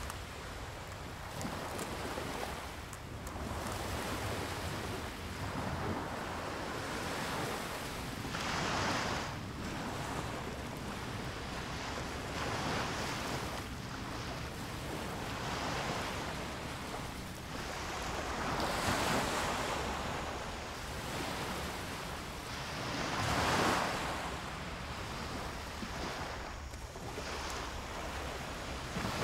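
Small sea waves washing onto a sandy beach, the rush of water swelling and falling back every few seconds, with wind on the microphone.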